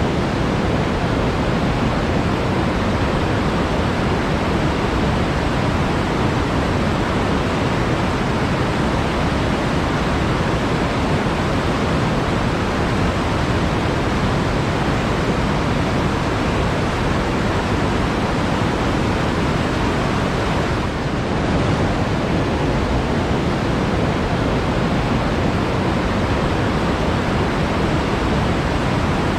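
Water flowing in a forest, a steady even rush with no other sounds standing out.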